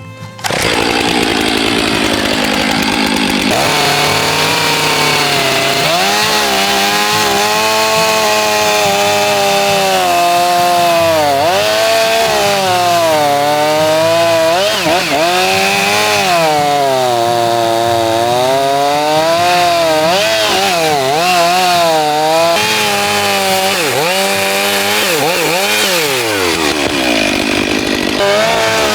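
Gas chainsaw cutting into a log to rough out a carving, the engine pitch rising and dipping continually as the chain loads and unloads in the wood.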